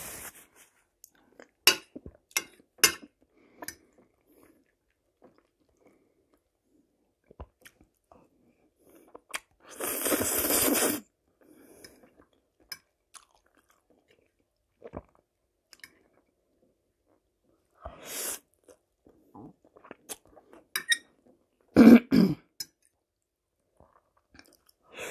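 Close-miked eating: chewing and mouth clicks as spaghetti with fried mushrooms is eaten. About ten seconds in there is a loud, noisy slurp of spaghetti lasting a second or so, and near the end two louder short mouth sounds.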